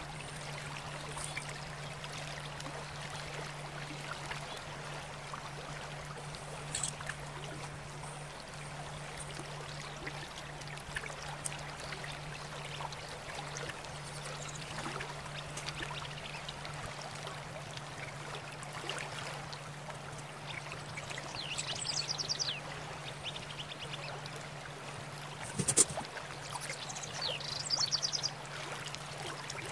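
A thin hand tool scraping lightly on a purple-clay teapot, over a steady low hum and hiss. A small pet bird chirps in quick runs twice in the last third, and there is one sharp tap about four seconds before the end.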